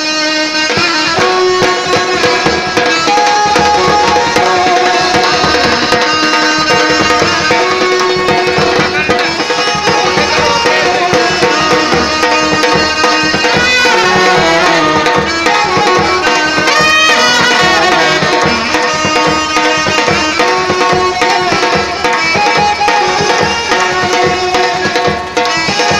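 Brass band playing: trumpets and saxophone carry a melody over a steady, driving drum beat.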